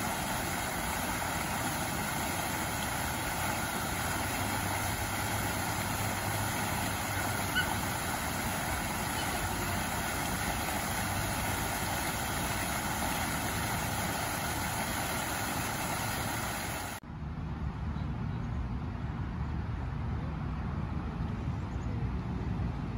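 Steady road-traffic noise from passing vehicles. About 17 seconds in it cuts abruptly to a deeper rumble.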